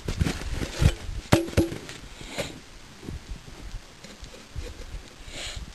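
Boots shuffling and crunching in snow and dry leaves, with several sharp knocks and a short ringing clink about a second and a half in.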